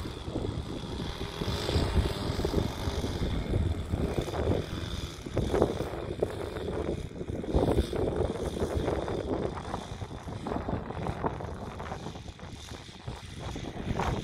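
RC model airplane's engine running as the plane taxis on the grass, with a steady high whine over it, and strong wind buffeting the microphone.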